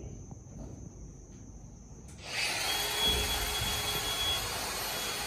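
Low and fairly quiet at first. About two seconds in, a steady whirring noise from a small motor starts abruptly, with a faint high whine running through it.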